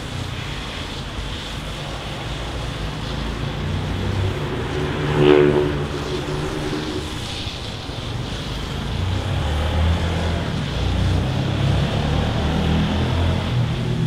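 City traffic: a steady low rumble of cars on the surrounding streets, with one vehicle's engine passing close by, loudest about five seconds in, then fading.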